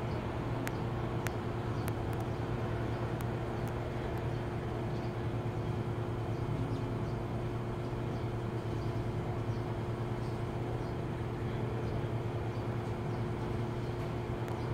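A steady low mechanical hum with a constant tone above it, and a few faint clicks.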